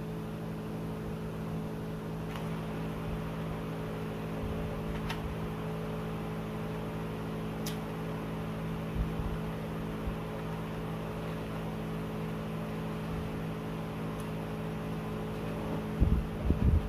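A steady machine hum fills the room, with a few faint clicks. There is a short cluster of low thumps near the end.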